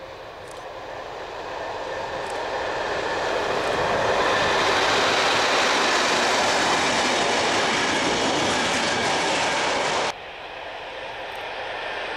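Diesel-hauled freight train approaching and rolling past, the locomotive and the wagons' wheels on the rails building to a steady loud rush. It cuts off suddenly about ten seconds in, replaced by a quieter rushing sound that slowly grows.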